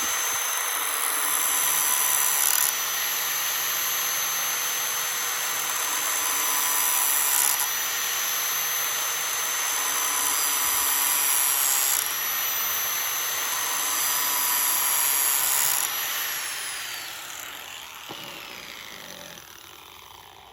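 Angle grinder running at speed, its disc grinding the rounded-over spine of a stainless steel Mora Companion knife square. There is a steady high whine over a harsh grinding noise, with the level shifting every few seconds. About three-quarters of the way through the grinder is switched off and winds down, its whine falling in pitch as it fades.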